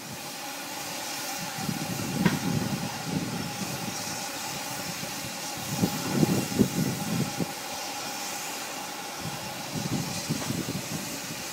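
1951 Robert Stephenson & Hawthorn M4 4-6-2 steam locomotive standing at the platform, hissing steam steadily over a faint steady tone. It is broken by uneven louder sounds about two seconds in, around six to seven seconds in, and near the end.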